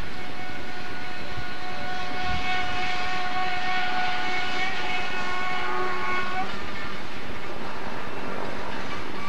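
Freight train cars rolling past on the rails, with a high, several-toned steady squeal from about two to six and a half seconds in.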